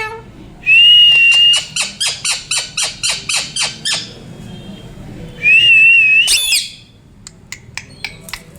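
Pet parrot calling: a long, high whistle that breaks into a rapid run of about a dozen short chattering notes, then a second long whistle ending in a sharp rising squawk, with a few faint clicks near the end.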